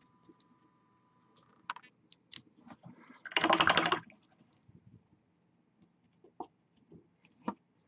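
Scattered light clicks and taps of painting tools being handled on a hobby desk, with one louder scratchy rustle lasting about half a second, three and a half seconds in.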